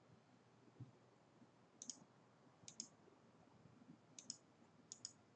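Faint computer mouse clicks: four quick double clicks spread over a few seconds.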